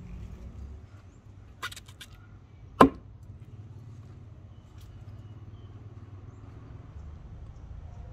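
A single sharp knock about three seconds in, over a low steady rumble, with a few faint clicks shortly before it.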